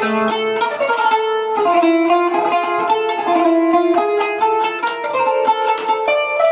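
Kanun, the Turkish plucked zither, played in an improvised taksim in makam Nihavend, in quick runs of plucked notes.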